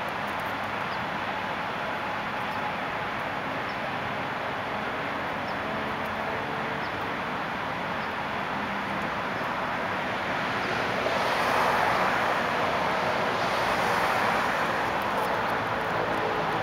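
Steady hiss of city street traffic, swelling about two-thirds of the way through as a vehicle draws closer.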